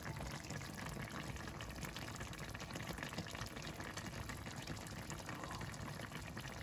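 Meatless Persian vegetable stew (khoresh) bubbling at a steady simmer in an open pot, a constant crackly hiss.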